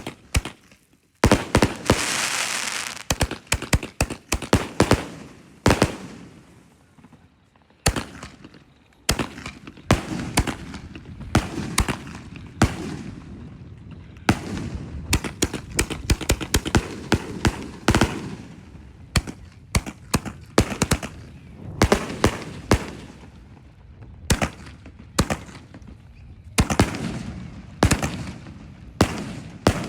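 Boo Berry multi-shot firework cake firing: a loud hiss about a second in, then a long run of sharp bangs, often several a second, with brief lulls between volleys.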